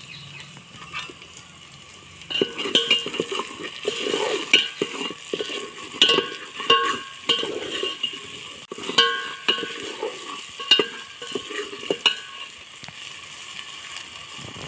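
Potato, cauliflower and pea curry frying in a pan with a steady sizzle. From about two seconds in, a spatula stirs it in irregular scraping strokes against the pan.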